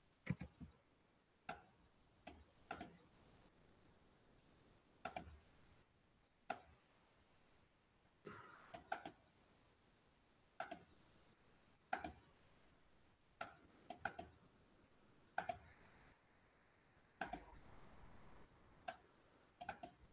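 Computer mouse clicking, sharp single and double clicks every second or two, with near silence between them.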